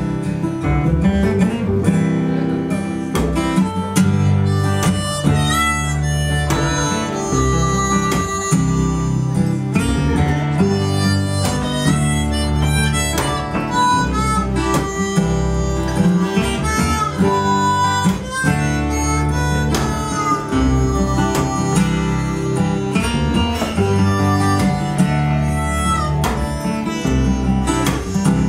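Harmonica solo played over strummed acoustic guitar and an upright double bass, an instrumental break with no singing.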